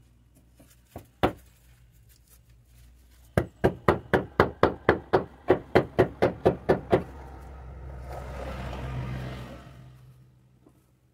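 A mallet tapping a flagstone to seat it in its bed: one knock, then a quick, even run of about fifteen taps, roughly four a second. Afterwards a rushing noise swells and fades.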